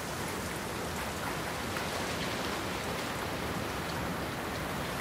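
Steady rain falling on leaves, an even hiss with no pauses.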